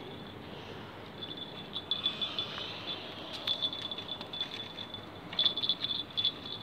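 A fishing reel being wound in to bring up a hooked eel: a high, thin ticking whir that comes in spurts, with a few light clicks near the end.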